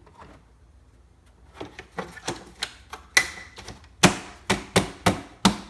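Plastic engine cover being put back on and pressed into place, giving a run of irregular plastic clacks and knocks that grow louder and closer together about three seconds in.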